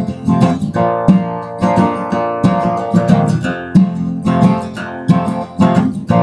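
Acoustic guitar strummed alone, its chords ringing on between strokes: the instrumental close of a country song, with no singing.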